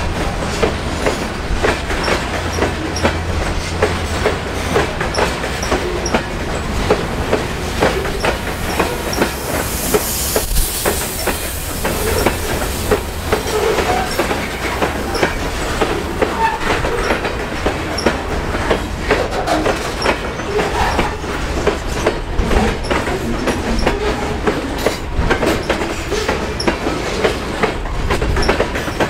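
Freight train of covered hopper cars rolling past close by, its steel wheels clacking over the rail joints in a steady repeating rhythm over a low rumble.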